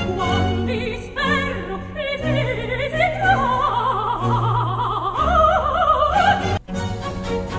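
Operatic singing with wide vibrato over an orchestra, played back through a Focal Utopia SG (2nd generation) headphone and picked up by a B&K 4195 measurement microphone. The music breaks off for an instant near the end.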